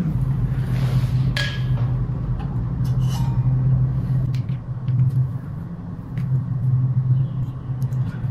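A steady low hum with a rumble beneath it, and a few light metallic clicks and clinks as the scooter's disc-brake caliper is worked loose and lifted off the brake disc by hand.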